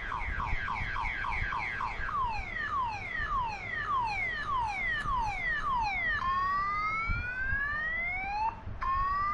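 Anti-theft alarm app sounding through a smartphone's speaker, set off by the phone being moved while motion-detection mode is armed. It is a car-alarm-style siren that cycles through patterns: rapid falling chirps about five a second, then slower falling sweeps about every two-thirds of a second, then long rising whoops from about six seconds in.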